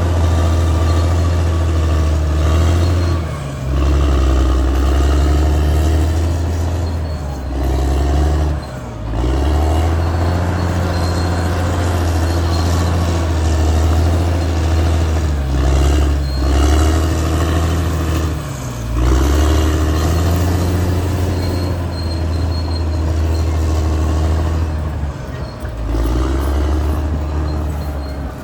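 Caterpillar D6R XL bulldozer's diesel engine running hard, its pitch sagging and recovering every few seconds as the load changes.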